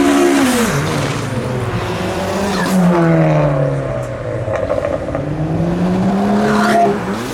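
A car engine revving hard: the pitch drops sharply about half a second in, jumps and falls again around three seconds, then climbs steadily as the car accelerates before cutting off near the end.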